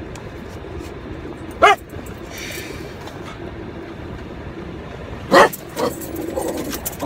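Small white terrier-type dog barking twice, about a second and a half in and again about five seconds in, the second bark followed by a shorter one. A steady car-interior hum runs under the barks.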